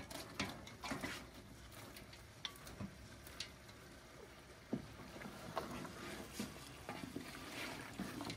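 A wooden spoon stirring and scraping in a large steel cooking pot as beef pieces are tipped in from a smaller metal pot, giving irregular clicks and knocks of metal and wood over a faint hiss of cooking.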